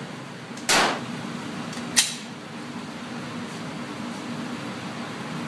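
A handgun shot on an indoor shooting range, heard as one fairly loud bang about two thirds of a second in, followed at about two seconds by one sharp click. A steady low hum runs underneath.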